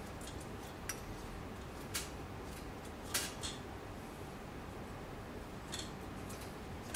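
A few light, unevenly spaced clicks and ticks of a bowstring serving jig being flipped around the string as serving thread is wound on, over a faint steady low hum.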